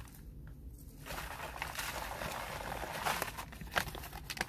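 Hands scooping loose garden soil and tipping it into a coffee bag: a soft rustle of dirt, then a few crinkles and crackles of the bag near the end.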